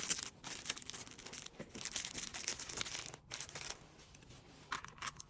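Plastic packaging rustling and crinkling in irregular stretches as small stationery items are handled and packed, fading to light handling noise in the last second or so.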